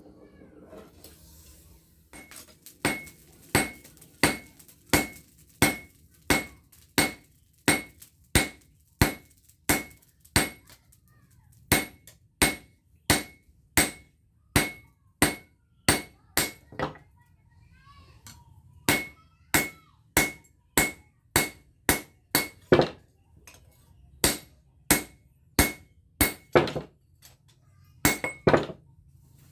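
Hand hammer forging a red-hot piece of bearing steel on a small steel post anvil. Steady blows at about one and a half a second start about two seconds in, each with a short metallic ring, with a brief pause a little past halfway.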